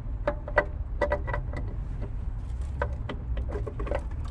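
Ratchet wrench clicking as it works a 10 mm bolt: short, irregular runs of sharp metallic ticks, quicker near the end.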